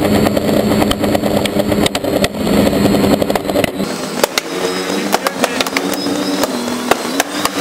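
Quadcopter's electric motors and propellers buzzing steadily as it hovers, with repeated sharp pops of paintball fire aimed at it, coming more often in the second half.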